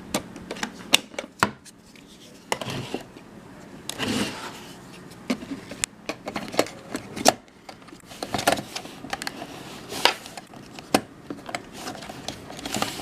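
Hands handling a camcorder and its battery: irregular sharp clicks, taps and knocks, with a few short rustles.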